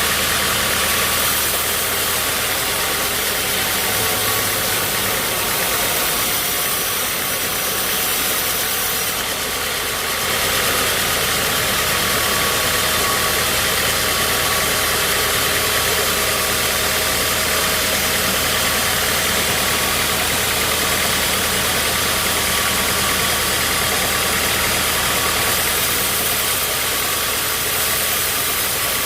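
Sawmill machinery running steadily: a constant engine hum under a dense hiss, with no pauses or changes in speed.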